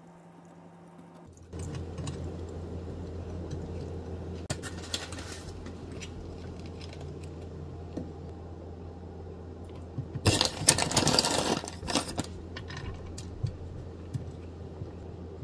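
Hands-on food-prep handling sounds: sticky rice paper and rice cakes being handled and wrapped, with small clicks and rustles. About ten seconds in there are two seconds of loud plastic packaging crinkling as shredded mozzarella is got out. A steady low hum starts about a second and a half in.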